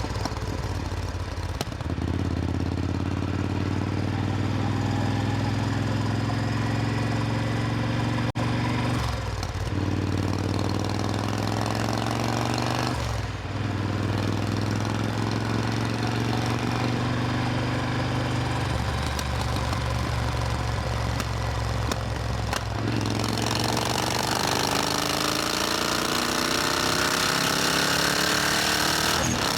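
Supercharged Triumph Thunderbird Storm's parallel-twin engine running at a steady pitch, dipping briefly a couple of times. Over the last several seconds its pitch climbs steadily as it accelerates.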